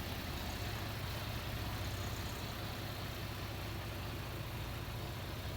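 Heavy diesel engine of earthmoving machinery running steadily at low revs, a constant low rumble with no changes.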